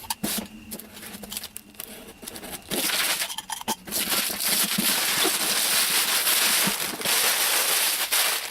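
Packaging being handled as a boxed RC truck is opened: a few light clicks and knocks at first, then a steady crinkling, rustling noise from about three seconds in, with a brief pause, until near the end.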